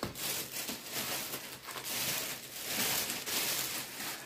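Plastic packaging rustling and crinkling as it is handled, in several uneven swells.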